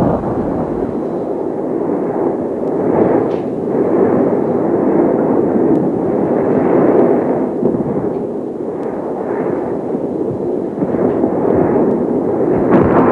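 Studio audience laughing and applauding loudly without a break.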